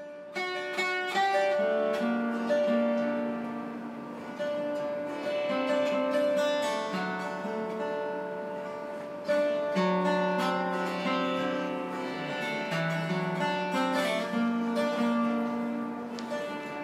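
Chaturangi, an Indian classical slide guitar built from a lap steel guitar, played solo with a slide. It plays slow melodic phrases of long held notes that step between pitches, each phrase opening with a sharp pluck that rings on.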